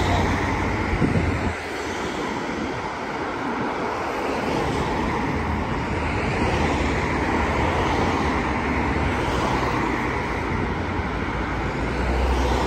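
Steady road traffic on a dual carriageway: cars and vans passing with tyre roar and engine noise, swelling as each goes by. Low wind rumble on the microphone about a second in and again near the end.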